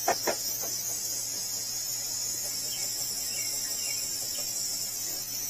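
Steady high-pitched hiss from a heat tool shrinking heat-shrink tubing over soldered wire joints, with two short clicks at the start.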